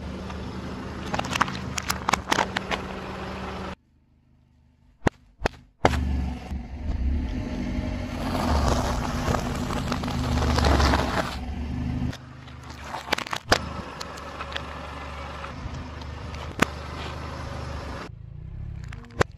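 A car tyre rolls slowly over soft and plastic-wrapped objects on asphalt and crushes them, with crackles, crunches and sharp snaps over the steady low hum of the car's running engine. There is a brief near-silent gap about four seconds in, then a few separate crushes with single sharp cracks.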